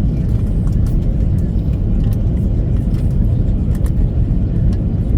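Steady low rumble inside an Airbus A330 passenger cabin, with faint light rattles and clicks scattered through it.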